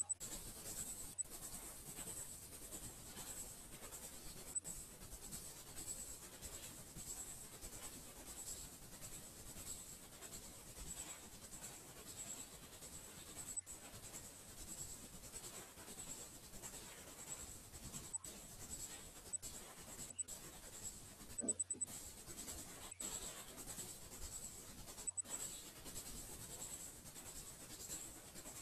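Faint steady microphone hiss with a thin, high-pitched whine running through it, broken by a few brief dropouts.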